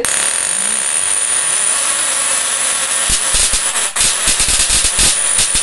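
Small spark-gap Tesla coil running: a loud harsh buzzing hiss with a steady high whine, starting abruptly. From about three seconds in, sharp spark cracks break in more and more often.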